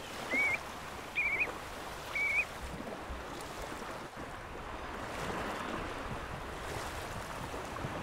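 Ringed plover giving three short, rising whistled calls about a second apart, over steady surf and wind.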